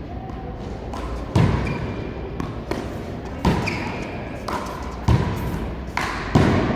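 One-wall handball rally: the small rubber ball slapped by hand and smacking off the front wall and court floor, with four loud hits a second or two apart and softer bounces between, each ringing briefly in the hall.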